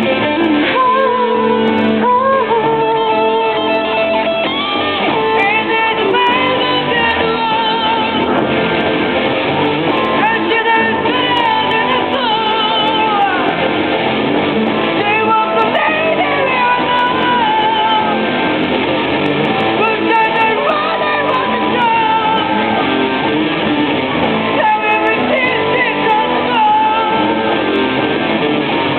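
Live singing with a strummed guitar accompaniment: a vocal melody over steady strumming.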